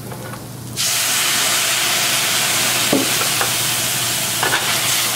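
White wine poured into a hot sauté pan of toasted arborio rice, bursting into a loud, steady sizzle about a second in as it hits the pan: the first addition of liquid to a risotto.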